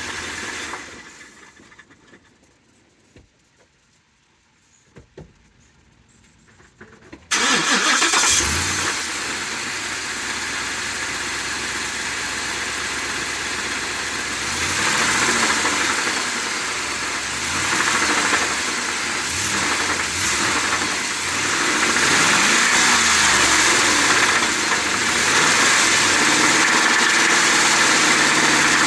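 Ford 7.3L gasoline V8 in a 2020 F-250 Tremor shut off, then silent with a few faint clicks, then started about seven seconds in and left running, its revs rising and falling several times. This is the abnormal engine noise left after an oil pump replacement, heard the night before the engine seized.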